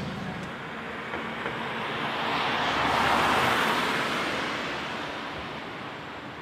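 A car driving past on the street, its tyre and road noise swelling to a peak about three seconds in and fading away over the next couple of seconds.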